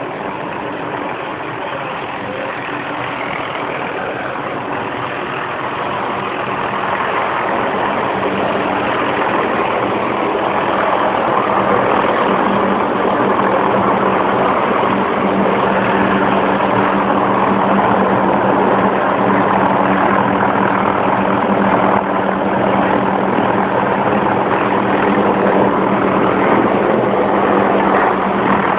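Helicopter running close by, a steady engine and rotor drone that grows louder over the first ten seconds or so and then holds steady.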